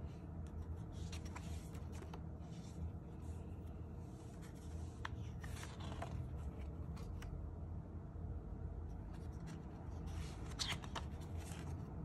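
Paper pages of a spiral-bound sketchbook being turned by hand: several short rustles and soft clicks, the longest sweep about halfway through and another near the end, over a steady low hum.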